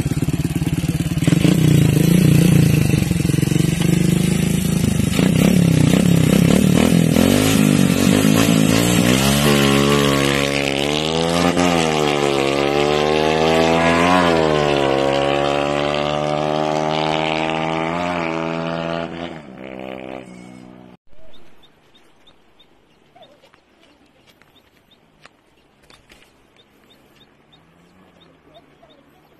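Honda XRM underbone motorcycle with a single-cylinder four-stroke engine, freshly modified, revving loudly as it pulls away and then running up through the gears. Its pitch rises and drops at each shift while it fades into the distance, and about twenty seconds in it dies away to quiet outdoor background.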